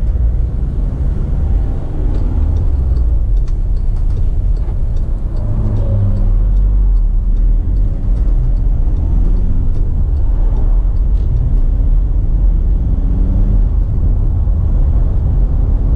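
Volkswagen Caddy TDI van's turbodiesel engine and road rumble heard from inside the cab as it pulls away and accelerates through the gears. The engine note rises and drops several times with the gear changes.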